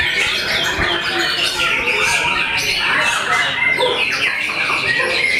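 Several white-rumped shamas (murai batu) in hanging contest cages sing at once: a dense, unbroken overlap of rapid whistled phrases, sweeps and chatter.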